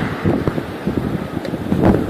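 Wind buffeting the microphone in irregular low gusts, loudest at the start and again near the end.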